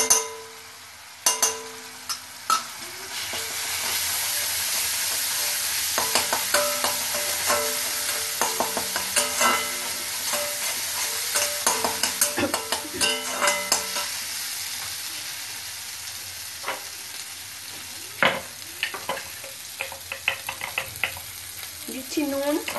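Ginger-garlic-onion paste with ground spices sizzling as it fries in oil in a metal kadai, while a metal spatula stirs and scrapes the pan with frequent clicks and knocks. The sizzle swells a few seconds in and eases off after about fourteen seconds.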